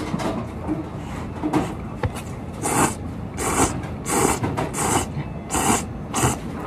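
Someone slurping thick udon noodles: six short, hissy slurps in quick succession, starting a little under halfway through.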